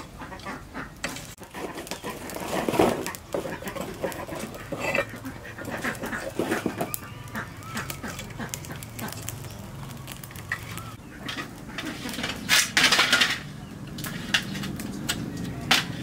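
Wood fire crackling in a clay stove while firewood and dry stalks are poked and shifted with metal tongs: scattered clicks, knocks and clatter, with a louder scraping clatter about three-quarters of the way through. Birds call now and then in the background.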